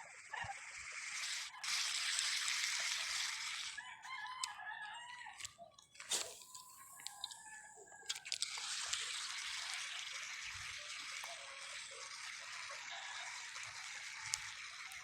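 A rooster crowing, drawn out over a few seconds from about four seconds in, over a steady background hiss.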